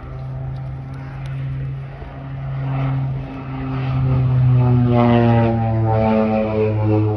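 Twin turboprop engines and propellers of a North American OV-10 Bronco on a display pass: a steady propeller drone that swells louder about four seconds in, its tones sliding slightly lower in pitch as the aircraft goes by.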